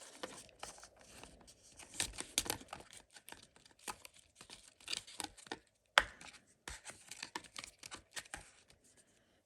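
Unboxing packaging being handled and torn: short, irregular rustles, scrapes and crinkles of paper and plastic wrapping, with one sharp click about six seconds in.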